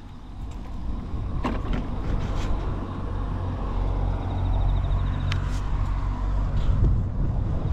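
Honda Motra's small single-cylinder engine running at idle, a low steady rumble that grows louder over the first second or so, with a couple of sharp clicks. It runs quietly with no abnormal noise.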